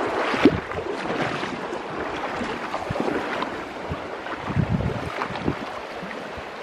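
Shallow river water running over a stony bed, with a few short splashes and some wind buffeting the microphone.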